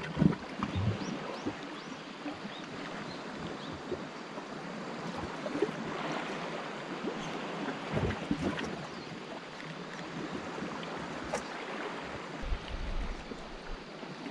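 Small waves lapping and splashing against shoreline rocks, a steady washing sound, with a few faint knocks and clicks scattered through it.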